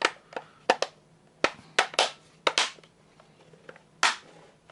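Irregular sharp clicks and knocks of small objects being handled, about ten in all, with the loudest knock about four seconds in.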